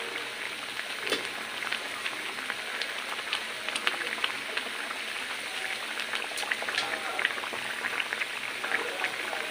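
Mustard-hilsa curry sauce boiling hard in a metal kadai: a steady, dense crackle of many small irregular pops from the bursting bubbles.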